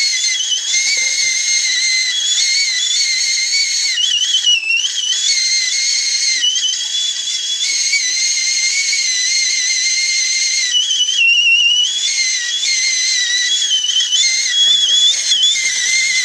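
Tea kettle whistling at the boil: a loud, shrill whistle of several high tones that waver and jump in pitch now and then.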